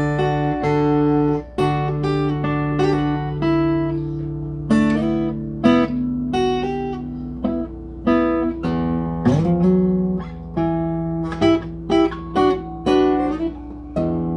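Guitar being played solo, a run of plucked notes and chords over held low notes, with a short upward slide about nine seconds in.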